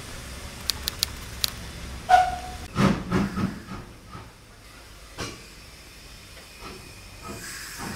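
Steam locomotive standing and hissing steam, over a steady low rumble. A few sharp clicks come early, a short high note about two seconds in, then a cluster of loud bursts around three seconds in.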